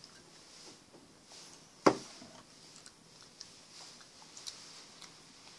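A plastic drink bottle set down hard on a table: one sharp knock about two seconds in, with a few faint small clicks around it.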